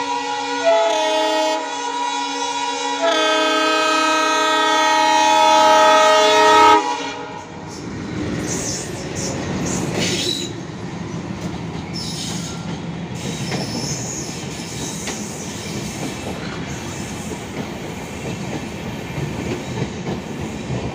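Twin diesel locomotives sounding a long multi-tone horn that changes pitch twice and cuts off about seven seconds in, then the locomotives and their coaches rushing past at speed through the station, wheels clattering over the rail joints.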